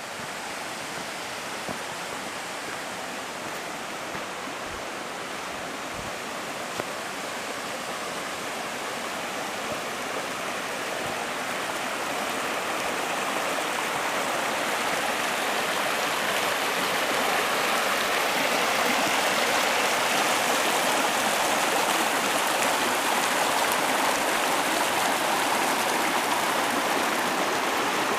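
Shallow rocky creek running over stones, a steady rush of water that grows louder through the first half as it is approached, then holds level.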